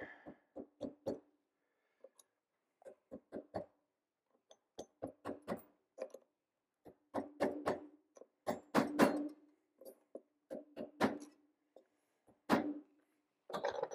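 Light hammer taps on metal, knocking tight cassette cogs down onto a bicycle rear wheel's freehub body. The taps come in quick clusters, each with a short metallic ring, and the hardest strikes come about two-thirds of the way through and near the end.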